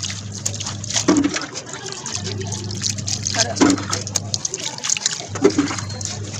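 Water poured from a jug, splashing and trickling over a wet cat and onto a concrete floor during its bath. Three short vocal sounds stand out, about a second in, near the middle and near the end.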